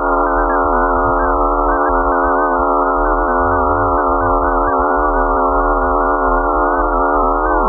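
Horror-style background drone: a dense chord of many held tones over a low rumble, steady throughout.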